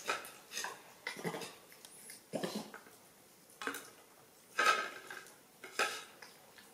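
Ceramic plates clinking and knocking on a tiled floor as monkeys handle them while eating, six or seven short clinks about a second apart.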